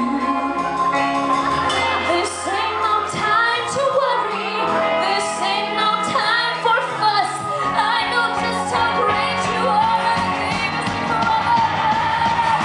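Live band playing a musical-theatre pop song while the cast sings, a woman singing lead into a handheld microphone.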